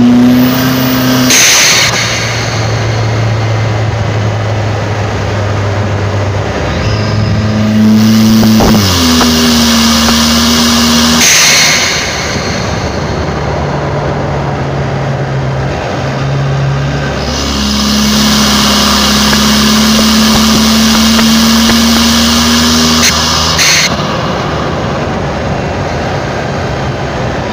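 Kia Sorento's engine pulling under acceleration, cut three times by a short, sharp hiss of the turbo blow-off valve venting as the throttle lifts: about a second and a half in, near the middle, and near the end.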